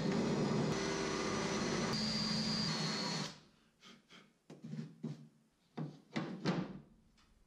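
Electric drill spinning a small sanding drum against the fiberglassed cedar-strip kayak deck, grinding out a thumb indent beside the hatch; it runs steadily and stops abruptly about three seconds in. It is followed by several short knocks and rubs as the wooden hatch cover is set into its opening.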